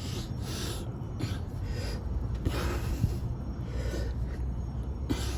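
Short puffs of breath, roughly one a second, from a man straining to push a plug tool into a tire, over a low steady rumble.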